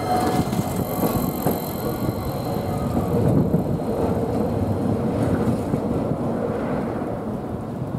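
Toei Arakawa Line 8800-series tram running past on street track: a rumble and clatter of steel wheels on rail, with a faint squeal, dying away near the end.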